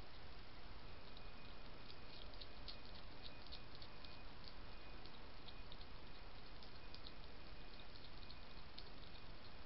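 A hedgehog crunching dry kitten biscuits from a dish: many quick, irregular, crisp clicks of chewing over a steady hiss.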